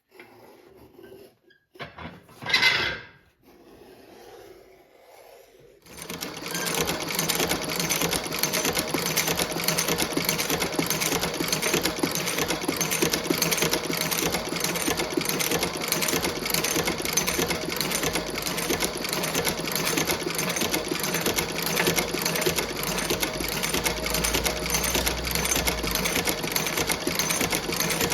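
A cobbler's stitching machine starts up about six seconds in and runs steadily with a fast, even, repeating beat. A single brief louder sound comes before it, about two and a half seconds in.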